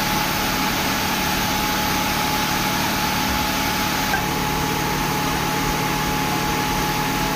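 Mobile crane's diesel engine running steadily, with a steady high-pitched whine over the engine's drone.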